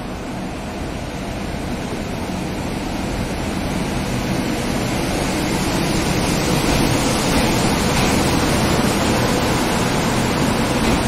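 Steady rushing rumble of an express train pulling into the station, growing gradually louder as it approaches.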